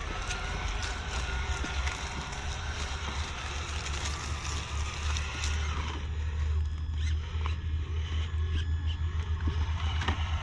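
Traxxas TRX-4 RC crawler's electric motor and drivetrain whining as the truck drives over grass and up a wooden ramp, the pitch wavering with the throttle, over a steady low rumble. The whine is clearest in the first half.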